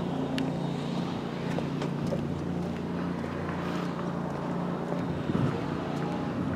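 Steady low motor hum, with wind blowing on the microphone.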